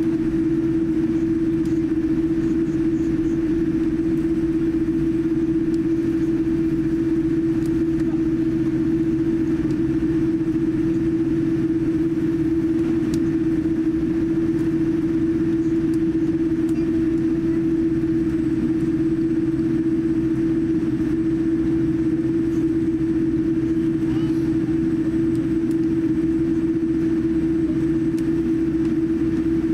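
Cabin noise inside a Boeing 787-9 airliner as it taxis: a steady low rumble with one constant hum tone running through it, unchanging throughout.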